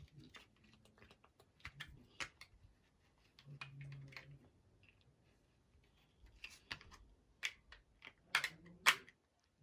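Large plastic interlocking toy blocks clicking and clacking as children handle them and press them together, in irregular clicks, with two louder clacks near the end.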